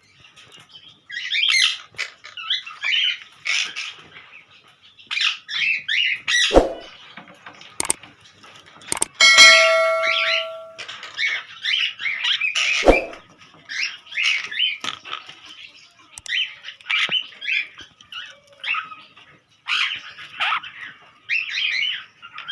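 A flock of sun conures and monk parakeets chattering and squawking in repeated harsh calls. About nine seconds in, a steady ringing tone sounds for about a second and a half, and a few sharp knocks come through.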